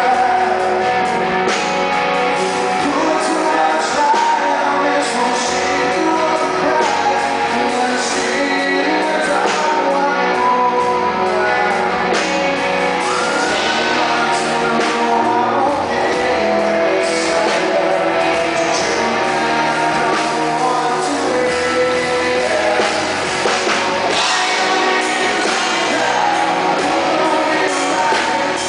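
Live rock band performance: a male lead singer sings over guitar-driven rock music, continuous and loud.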